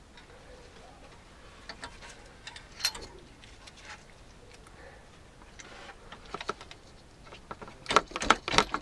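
Scattered small metallic clicks and clinks from a brake caliper being handled and worked on, with a quick run of louder knocks and clanks near the end.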